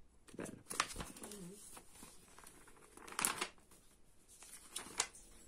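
Glossy magazine pages being turned and handled: a few short paper rustles, the loudest a little past three seconds in.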